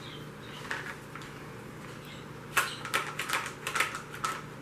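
Quick run of small sharp clicks and taps, about five a second, starting about halfway through: metal parts of a carbine and a hand tool being handled during disassembly.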